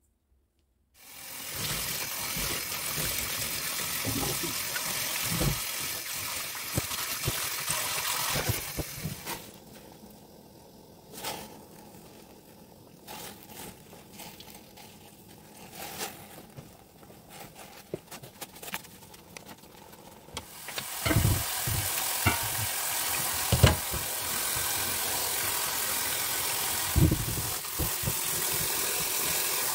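Tap water running hard for a stretch near the start and again from about two-thirds of the way through. In the later stretch it pours over blanched fleabane greens in a steel bowl, with splashes and thumps as gloved hands work them. In between comes a quieter stretch of about ten seconds with scattered clicks and knocks, while the greens steam in a pot on the gas stove.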